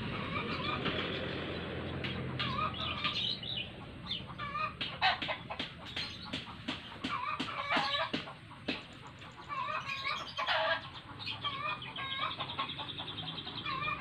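Chickens clucking and calling over and over, the calls coming in clusters with short gaps between them. A low rumble fades out in the first couple of seconds.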